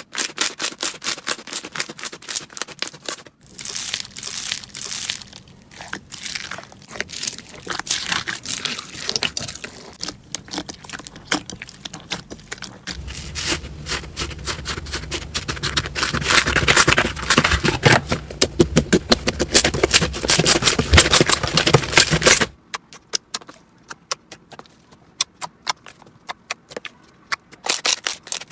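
Slime being squished and worked, giving rapid crackling, clicking pops. The sound changes abruptly twice, at about three seconds and about twenty-two seconds in, with a denser, louder crackle between.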